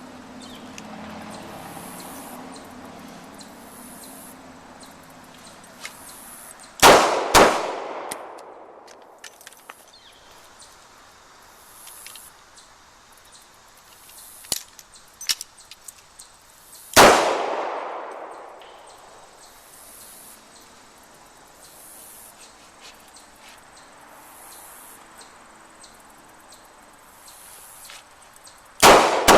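Revolver shots, each with a long echoing decay: two quick shots about seven seconds in, a single shot about ten seconds later, and two more quick shots at the very end, with faint clicks between.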